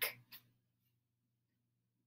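Near silence: quiet room tone with a faint, steady low hum.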